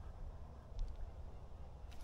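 Faint, uneven low rumble on the microphone, with a couple of faint ticks, about a second in and near the end.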